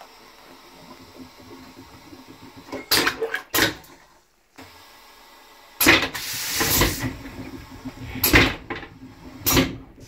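Train vacuum toilet flushing with a stainless-steel bowl: two short loud bursts about three seconds in, then a loud rush of suction about six seconds in lasting about a second, and two more short bursts near the end.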